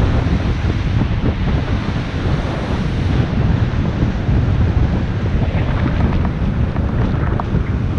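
Wind buffeting a GoPro's microphone while riding a bike at about 14 km/h, over the steady wash of surf breaking along the shore. A few light ticks come in the second half.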